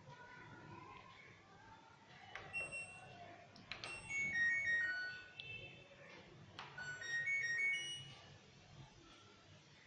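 Control panel of an LG top-load washing machine: button presses click, and the machine answers with short electronic jingles of beeped notes, first one stepping down in pitch, then one stepping up.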